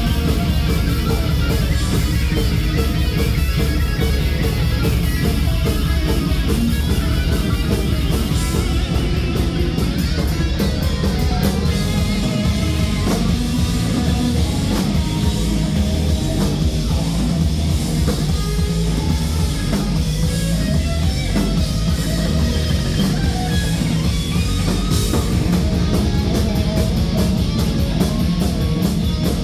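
Heavy metal band playing live at full volume: two electric guitars playing riffs over a drum kit.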